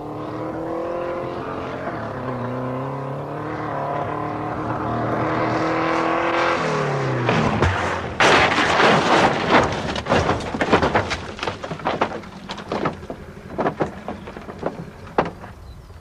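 A car engine running as the car drives along, its revs climbing slowly and then dying away about seven seconds in. Then comes a sudden loud crash as a compressed-air cannon tips the car over onto its side, followed by a few seconds of crunching and clattering knocks that thin out.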